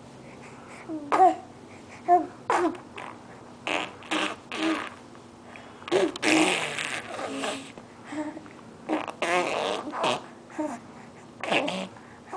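Four-month-old baby babbling and blowing raspberries: a string of short wet lip-buzzing bursts mixed with brief cooing sounds.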